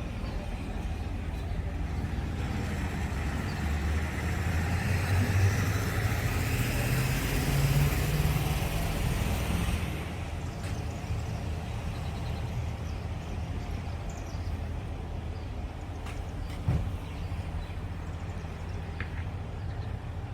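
A motor vehicle driving past, growing louder with a slowly rising engine note for several seconds, then dropping away suddenly about ten seconds in, over a steady low rumble. A single short knock comes near the end.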